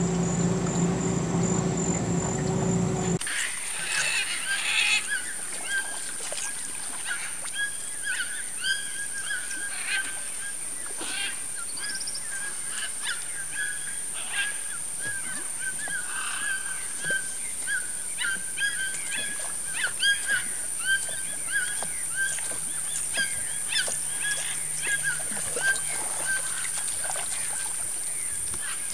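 A boat's motor running steadily, cut off abruptly about three seconds in. It gives way to wild marsh ambience: many short bird calls, one call repeated over and over at the same pitch, over a steady high-pitched insect drone.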